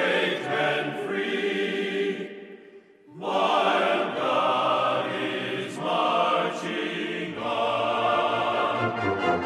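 Choral music with voices chanting in chords. It fades out about two and a half seconds in, and a new choral passage starts at about three seconds, with a low bass line joining near the end.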